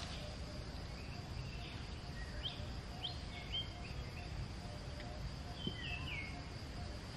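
Outdoor ambience of birds chirping in short whistled notes, a cluster about two and a half to three and a half seconds in and a falling run near six seconds, over a steady high insect drone and low rumble.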